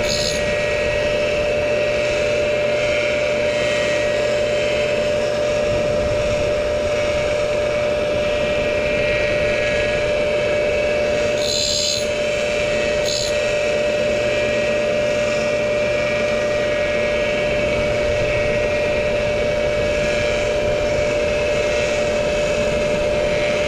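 Tool and cutter grinder running with a steady motor and spindle whine while its grinding wheel takes light sharpening cuts on the teeth of a milling cutter mounted on its arbor. Two short high hisses come about twelve and thirteen seconds in.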